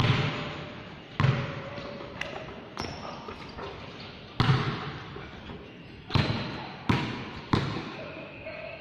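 A basketball bouncing hard on a concrete court floor, about seven sharp bounces at uneven intervals, each echoing under the court's roof.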